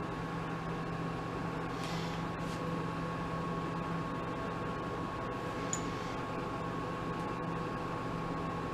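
Mini lathe motor running steadily: a thin high whine over a low hum, with a couple of faint light ticks.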